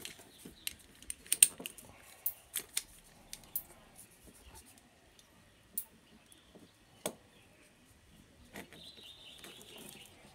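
Sharp metallic clicks and snaps from a folding card-shaped metal toy pistol being handled. There is a quick run of clicks in the first few seconds, then a few single clicks. Near the end comes a soft scraping as a dart is fitted into its breech.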